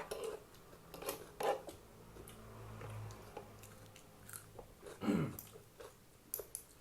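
Close-up eating sounds: a person chewing and biting food, with small clicks and crunches. A short falling vocal sound comes about five seconds in.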